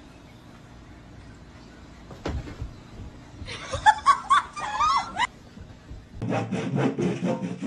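A person giggling for about two seconds in the middle, after a quiet stretch broken by a single click. Background music with a steady beat starts near the end.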